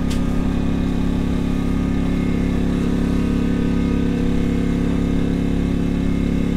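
Generator running at a steady idle, an even engine hum that does not change. A single light click right at the start.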